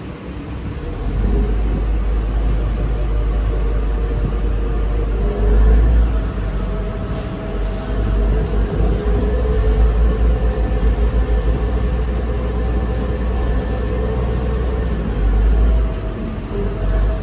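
Passenger ferry's engines droning steadily with a few held whining tones, while wind buffets the microphone on the open deck in a heavy, uneven rumble that swells about a second in.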